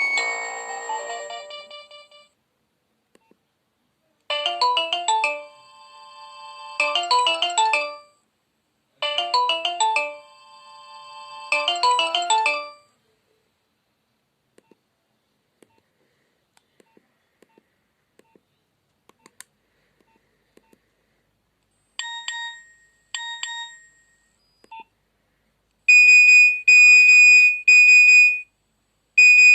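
Nokia 2600 mobile phone playing its preloaded tones through its loudspeaker, one after another. A short electronic melody is played twice. After a gap with faint clicks comes a brief chime, and near the end a loud, repeating high-pitched beep pattern starts.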